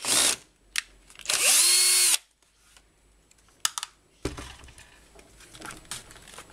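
Cordless drill-driver backing a screw out of an electric grass trimmer's plastic housing. There is a short burst at the start, then the motor whines up quickly and runs steadily for about a second before stopping. Afterwards come a few clicks and the knock and rub of the plastic housing being handled.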